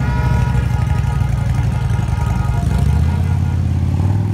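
Heavy cruiser and touring motorcycle engines rumbling past at low speed, with a steady low engine note that changes about three seconds in.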